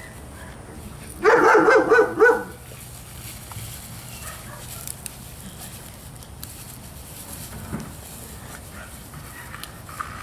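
A dog barking: a quick run of several short barks lasting about a second, starting about a second in.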